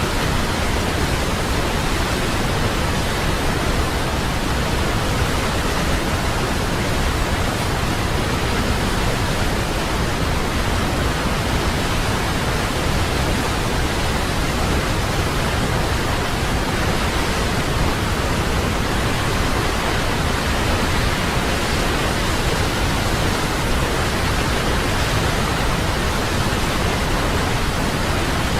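Waterfall: a steady, unbroken rush of falling water, spread evenly from a low rumble to a high hiss, with no change in level.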